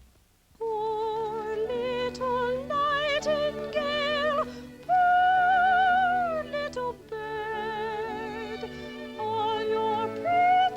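Cartoon soundtrack music starting about half a second in: a wordless, high melody with strong vibrato in an operatic style, over sustained accompaniment.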